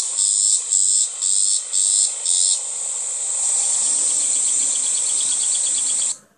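Insects calling in the vegetation: a loud, steady high-pitched buzz that pulses about twice a second at first, then runs on unbroken, with a quicker, lower trill joining about halfway through. It cuts off suddenly near the end.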